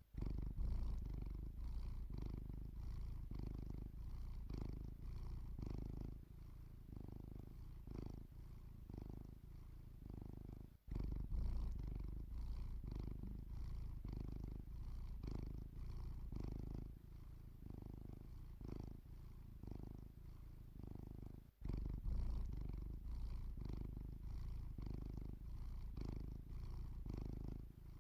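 Sleeping domestic cat purring, a close low rumble that swells and fades with each breath about once a second. It breaks off very briefly twice, about 11 and 22 seconds in.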